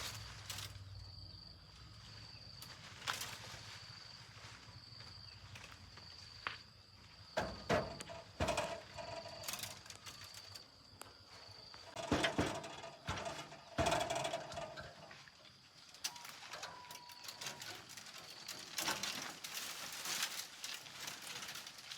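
An insect chirps in a steady high-pitched trill, broken into regular pulses about a second long, through the first half. Irregular knocks and clatter of handling come around the middle and again a little later.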